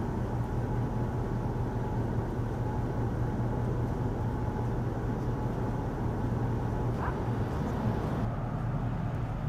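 Steady low hum of a running motor vehicle engine with even road noise.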